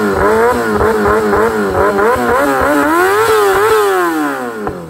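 Motorcycle engine revving, its pitch rising and falling several times with the throttle, then climbing once more and dropping away steadily near the end.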